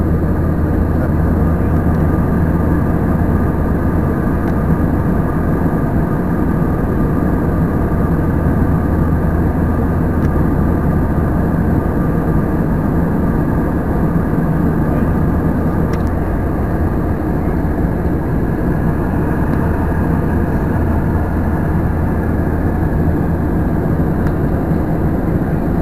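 Steady, loud cabin noise of an airliner in flight: engine drone and rushing air heard from a window seat, with a constant low hum underneath.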